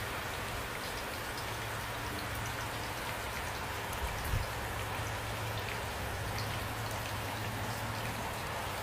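Steady rain falling, an even hiss with scattered individual drops ticking. Two brief low thuds come about four seconds in.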